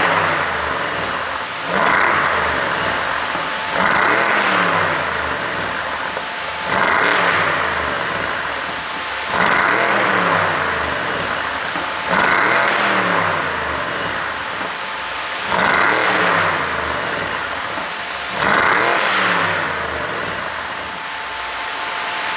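BMW 550i's twin-turbo V8 being blipped repeatedly while stationary, with about eight sharp revs every two to three seconds, each dropping back toward idle. The car is running an ECU tune meant to make exhaust pops on the overrun.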